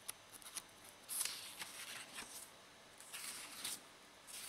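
Pages of an old paperback book being turned by hand: dry paper rustling, with two longer page turns, about a second in and again past three seconds, and a few small flicks of paper.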